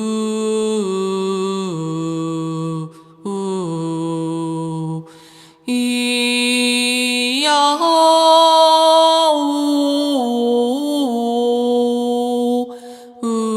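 A person's voice intoning long held tones, unaccompanied, stepping from one pitch to another and higher in the second half, with short breaks about three seconds in, about five seconds in, and near the end. This is improvised vocal toning used as sound therapy.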